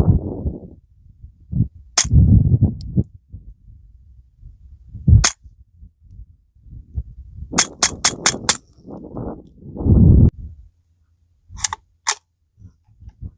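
Suppressed .22 LR gunshots through a B&T rimfire silencer, each a sharp, muted crack. There is a single shot about 2 seconds in and another about 5 seconds in, then a quick string of about five, then two more close together near the end. Dull low thumps come between the shots.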